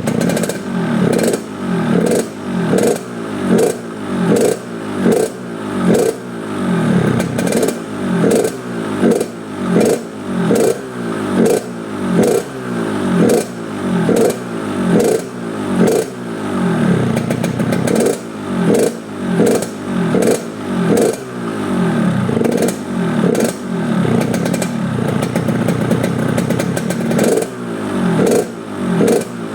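Yamaha RX-King single-cylinder two-stroke motorcycle with its throttle blipped over and over, a little faster than once a second. Each rev falls away in a gruff, rasping 'ngorok' (snoring) exhaust note with sharp crackles.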